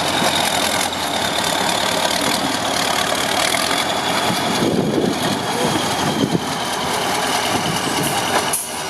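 Heavy off-road trial truck's engine running steadily, with a short dip in level near the end.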